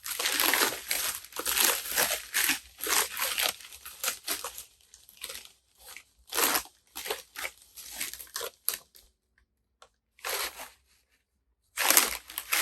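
Packing wrap being crumpled and torn off a film camera by hand, in irregular rustling bursts that thin out after the first few seconds, with two short pauses near the end.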